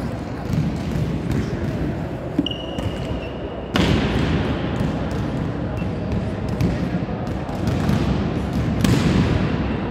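Volleyballs being struck and bouncing on a hard indoor court, repeated sharp thuds echoing in a large sports hall, over a steady background of hall noise. A short high tone sounds briefly about two and a half seconds in.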